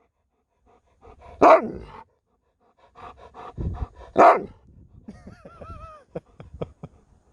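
Alaskan malamute 'talking' back: a loud woo-like call about a second and a half in, a string of shorter grumbles leading to a second loud call, then a wavering whine near the end.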